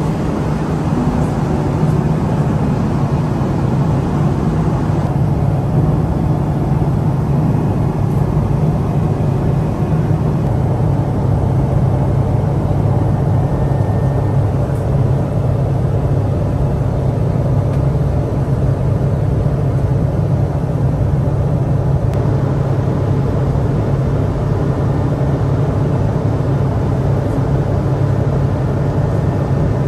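Steady low drone of airliner cabin noise at cruise: the engines and airflow of a Boeing 777-200, heard inside the business-class cabin.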